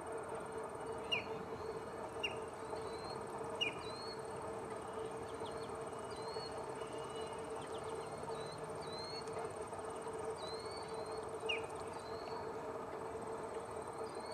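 Lesser yellowlegs giving short, sharp, falling call notes, four in all: three in the first four seconds and one near the end. Under them run a steady high insect trill and softer chirps repeating about once a second.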